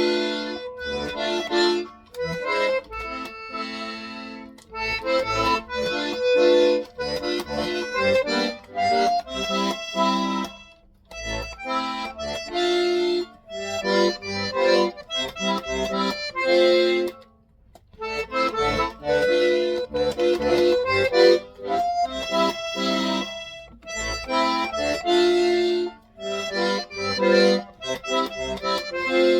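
Accordion played by someone learning it: a tune with chords that stops briefly a couple of times, about 11 and 17 seconds in, before going on.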